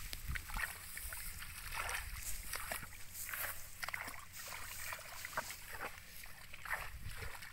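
Hands digging and scraping in wet mud among dry rice stubble: an irregular run of short crackles, scrapes and squelches, over a low steady rumble.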